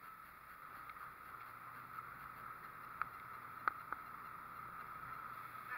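Boat motor running steadily with a low hum under a steady mid-pitched whine, and a few sharp clicks about three to four seconds in.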